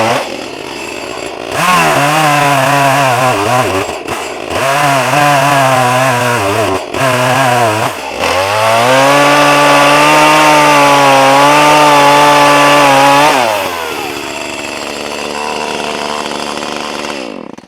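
ECHO CS-310 two-stroke chainsaw cutting a felling notch into a tree trunk. The engine revs high and dips briefly several times as the chain loads in the wood, then holds a long steady high-speed stretch. It drops to a lower, quieter speed for the last few seconds and stops abruptly.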